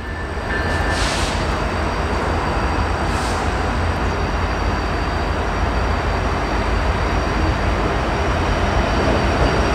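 Norfolk Southern freight train rolling past behind its diesel locomotive: a steady deep engine rumble mixed with the noise of steel wheels on rail, growing slightly louder.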